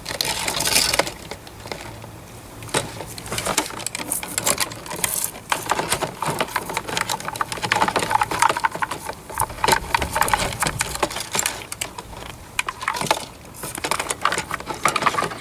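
A brush scrubbing the stripped die-cast metal body of a toy caravan, a rapid, irregular scratching and clicking.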